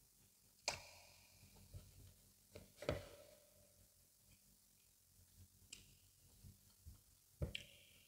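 Close-miked eating sounds of fufu with egusi soup: a few scattered wet mouth smacks and chewing clicks, with long quiet gaps between them.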